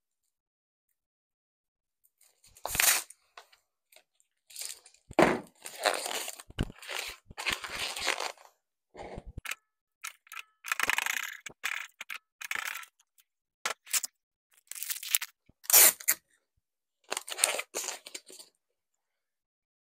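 Intermittent crackling and rustling as balloons and decorative pieces are handled and placed, in short bursts of a second or so with silent gaps between.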